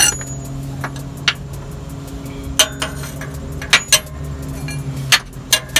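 Sharp, irregular metallic clinks of a 22 mm wrench against the oxygen sensor and exhaust parts as it is fitted and worked on the sensor, over a steady low hum.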